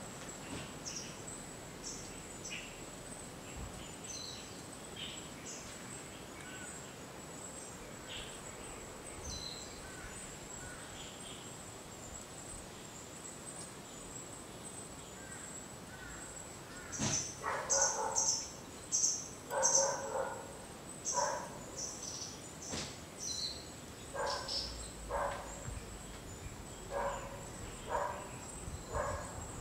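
Birds calling over a steady outdoor hiss and a thin, steady high-pitched tone: scattered small chirps through the first half, then louder calls from about halfway through, ending in a run of short calls about one a second.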